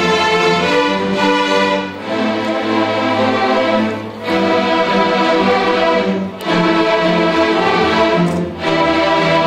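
Massed student string orchestra of over 270 players, violins and cellos, playing loud held chords. The chords come in phrases about two seconds long, each cut off by a brief break.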